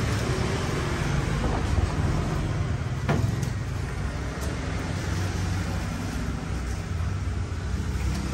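Steady low background rumble, with one sharp knock about three seconds in.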